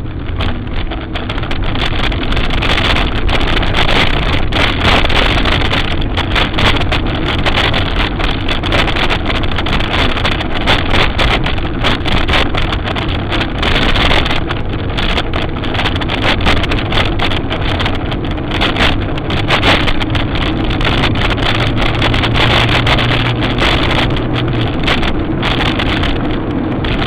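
Vehicle driving along a country road: steady engine and road noise, with wind gusting on the microphone.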